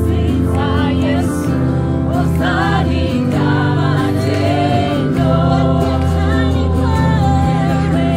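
Gospel worship music: several voices singing together over sustained bass notes.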